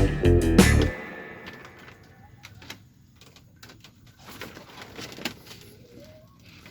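Background guitar music cuts off about a second in, leaving faint outdoor ambience with scattered light clicks and a few short bird calls.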